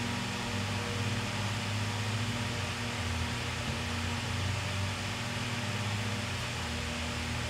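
Steady low hum over an even hiss: background noise of running shop equipment, with no distinct event.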